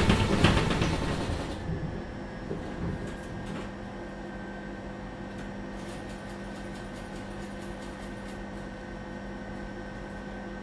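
Tatra T4D-C tram: a loud burst of rumbling noise in the first second and a half, then a steady electrical hum with several fixed tones and a few faint clicks.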